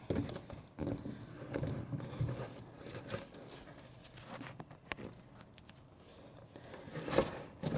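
Soft rustling and scraping of a paperback picture book being handled and its pages turned, with a few light clicks and a louder scrape near the end.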